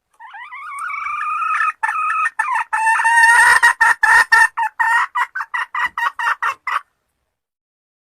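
Red junglefowl hen cackling: one long drawn-out note that rises and swells, then a run of short repeated cackle notes, about three a second and quickening, that stops abruptly.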